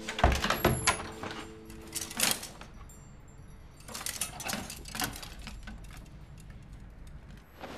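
Clothes being rummaged through by hand: bursts of fabric rustling mixed with light clicks and jingles. The loudest cluster is in the first second, with others about two seconds in and around four to five seconds in.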